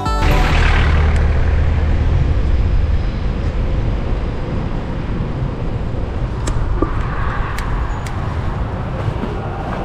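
Rumbling wind and road noise from riding a bicycle along a paved street, picked up by a camera mounted on the bike. It is loudest over the first few seconds, then eases, with a few sharp ticks in the second half.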